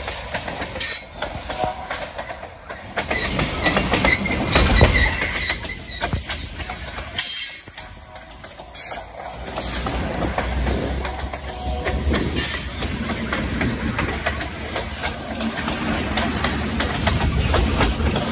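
A freight train of loaded tank cars rolling past close by: a steady rumble of steel wheels on the rails, with the clack of wheels over rail joints.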